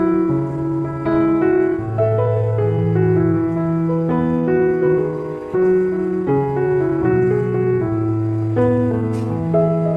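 Background piano music: slow sustained chords over a bass line.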